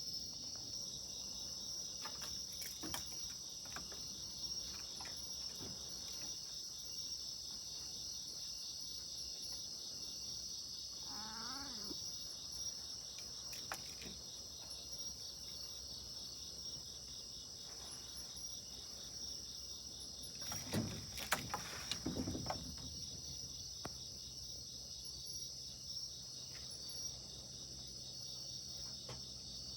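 Insects chirping steadily, with a cat meowing once about 11 seconds in, and a louder, longer sound about 21 to 22 seconds in.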